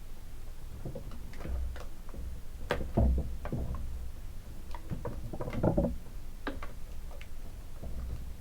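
Hands handling doll packaging and small plastic accessories: irregular clicks, light knocks and rustles, with two louder thumps about three and six seconds in.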